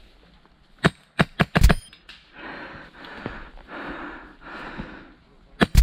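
Airsoft gun shots: five sharp cracks in quick succession about a second in, and two more near the end. Between them comes a soft rushing noise of heavy breathing.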